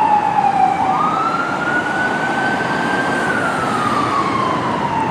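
Ambulance siren on a slow wail, over steady traffic noise. The pitch falls, jumps back up about a second in, climbs slowly for two seconds, then falls again toward the end.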